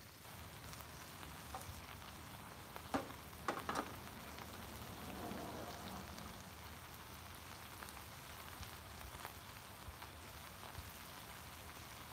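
Faint steady sizzling hiss from a hot Blackstone flat-top griddle, with a couple of light clicks about three seconds in.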